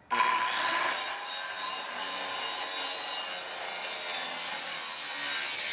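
Handheld circular saw cutting through a panel of solid-core insulated vinyl siding: a steady, unbroken run of blade and motor noise with a high whine.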